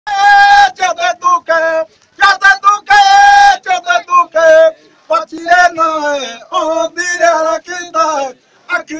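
A group singing a chant while dancing in a line, in short repeated phrases with brief pauses between them. The nearest voice is very loud and close, and some notes slide downward later on.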